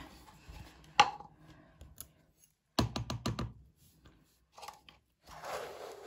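Hard plastic knocking and clicking against a plastic storage box: one sharp knock about a second in and a quick run of clicks around the middle. Near the end comes the scrape of a plastic scoop digging into loose washing powder.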